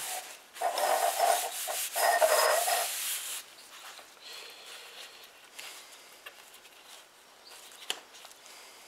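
A shop towel rubbing and wiping, in two loud stretches in the first three seconds or so, followed by quieter handling noises and a single sharp click near the end.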